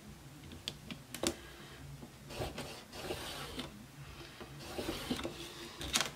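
Tailor's chalk scratching across shirt fabric along a clear acrylic ruler, drawing a marking line in two short strokes, with a few light clicks and taps of the ruler on the cutting mat about a second in and near the end.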